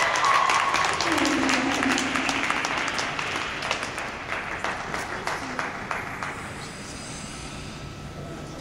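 Small audience applauding after the music ends, the clapping gradually thinning out and fading.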